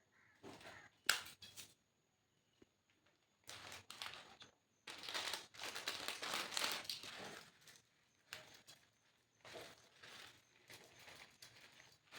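Crinkling and rustling, with a few sharp clicks about a second in, then two longer spells of dense crinkling.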